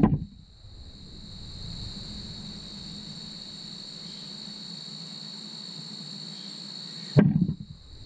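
Steady high chirring of insects over soft scraping of gloved hands digging through loose soil. A brief, loud thump comes right at the start and another about seven seconds in.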